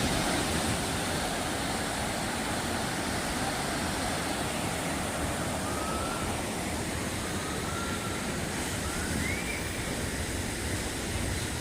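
Kawasan Falls' waterfall rushing steadily. A few faint short rising chirps come through over it in the second half.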